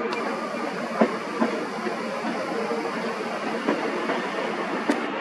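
Seoul Metro electric subway train running on rail tracks: a steady rolling rumble with a few sharp clicks of the wheels over rail joints.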